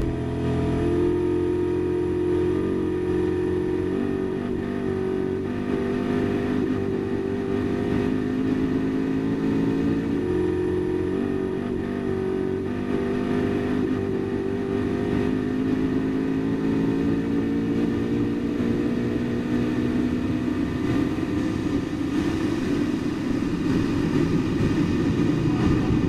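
Koenigsegg Regera's twin-turbo V8 at full throttle on a standing-start record run, its note rising slowly and smoothly with no gear changes, as it has a single-speed direct drive. Near the end the note drops away as the car lifts off and brakes hard.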